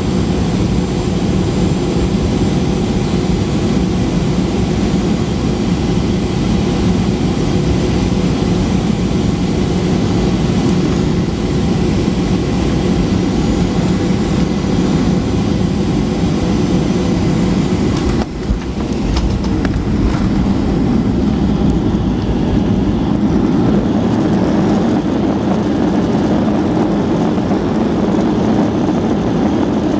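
Cabin noise of a Boeing 737-800 on final approach: the steady drone of its CFM56 jet engines and airflow, heard from a seat beside the wing. About 18 seconds in the sound breaks with a brief dip and a thump as the wheels touch down. After that a rougher rushing rumble builds as the jet rolls out along the runway.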